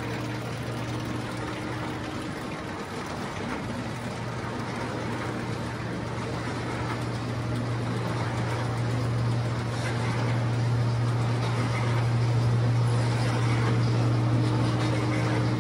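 Steady low machinery hum with a faint whine above it, growing slowly louder.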